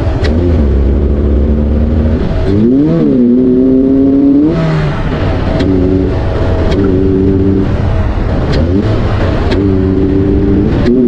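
Volvo car engine breathing through a newly fitted cone air intake (induction kit) while being driven, the engine note holding steady in stretches and briefly revving up and back down about three seconds in. Several sharp clicks cut through it along the way.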